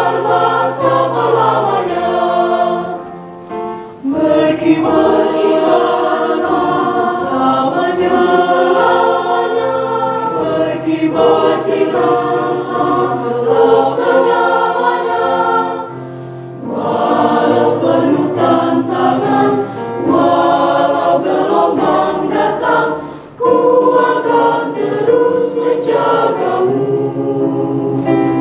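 Mixed choir of women's and men's voices singing in parts, with a few short breaks between phrases.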